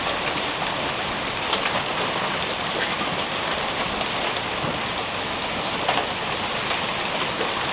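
Hail pelting down, loud: a steady dense patter with scattered sharper clicks of individual hailstones striking.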